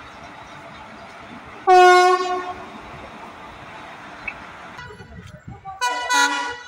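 Indian Railways electric locomotive horn: one loud, short blast that fades over about a second, over the steady rumble of a passing train. After a break, another locomotive horn gives a brief blast near the end.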